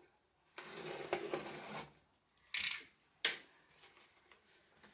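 Yellow utility knife slicing along the packing tape on a cardboard box, a scratchy cut lasting about a second, then two short, sharp rasps as the tape and cardboard flaps are pulled apart.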